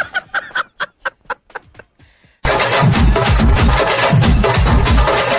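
A man laughing in quick, even bursts, about five a second, that fade out over the first two seconds. After a short pause, loud music with a heavy drum beat starts suddenly.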